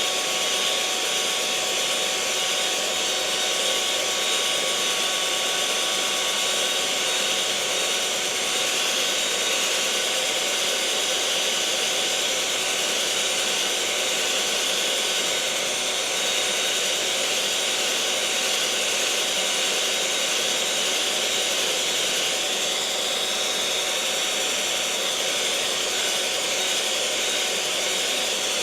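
Electric mixer motor running at a constant speed: an even, steady whir with a faint whine held through it and no change in speed or level.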